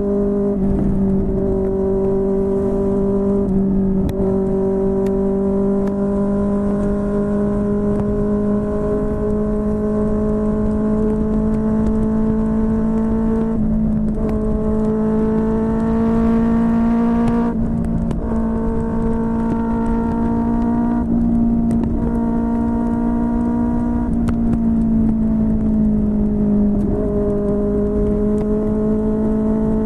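QJMotor SRK600 inline-four engine through a Yoshimura R11 exhaust, running on the road at steady mid revs. Its pitch drifts slowly, with a brief dip or break about six times, as the throttle is rolled off or the gears change.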